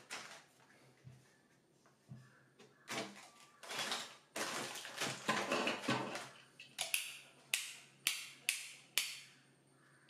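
Plastic packets of modular switch parts rustling and crinkling as hands sort through them, with a quick run of short crinkles and taps about twice a second near the end.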